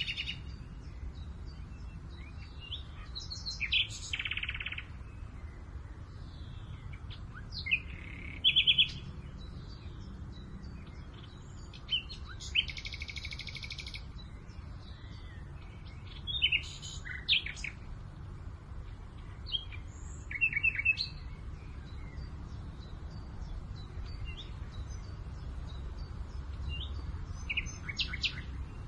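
Songbirds singing short chirping phrases every few seconds, some as quick trills, over a steady low rumble of breeze.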